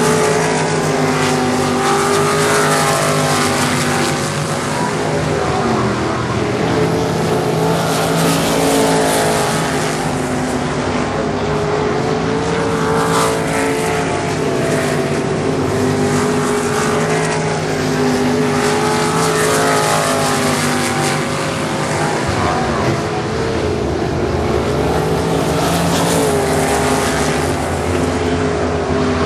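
IMCA 305 sprint car engines racing on a dirt oval, steady and loud. Their pitch falls and rises again every few seconds as the cars go through the turns and back onto the straights.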